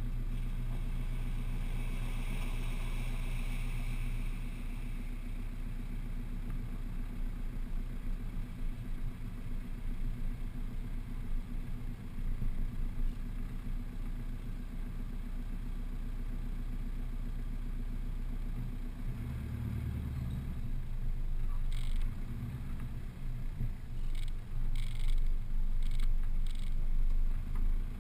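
Four-wheel drive's engine running low and steady as it crawls along a rough dirt track. Near the end come several short bursts of splashing as the tyres run through muddy water in the ruts.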